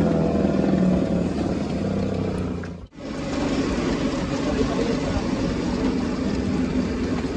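A vehicle's engine and road noise while riding, with a steady low hum and a slight fall in engine pitch early on. There is a brief sharp drop about three seconds in, after which a steady rumble of engine and road noise resumes.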